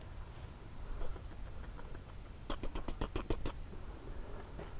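Footsteps and rustling in dry leaf litter and brush, with a quick run of sharp crackles a little past halfway, over a steady low rumble.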